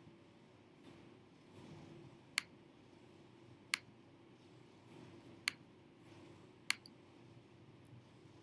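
Five sharp single clicks, a second or more apart, from a computer mouse being clicked, over a faint steady hum.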